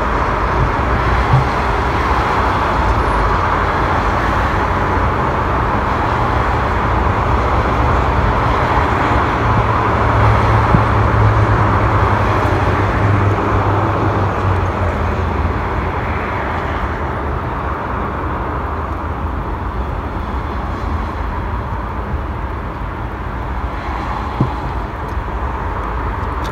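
Steady road traffic noise, with a low rumble that swells about ten seconds in as a vehicle passes, then eases off.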